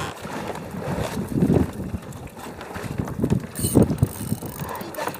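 Spinning reel being cranked against a bent rod, its gears ticking and whirring. Wind buffets the microphone in irregular low gusts and thumps.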